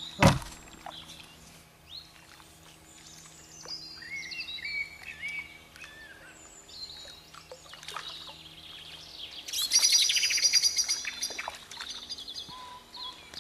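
Songbirds singing in short chirping phrases, with a loud, rapid trill about ten seconds in. A sharp knock comes right at the start.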